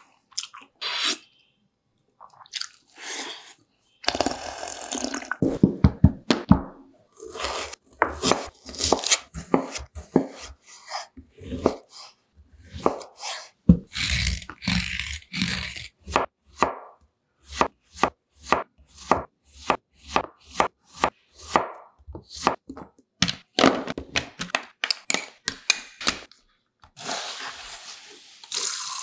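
A kitchen knife chopping vegetables on a wooden cutting board: runs of quick knocks with short pauses between them, mixed with the scraping of a vegetable peeler on a daikon radish. Near the end a tap starts running water.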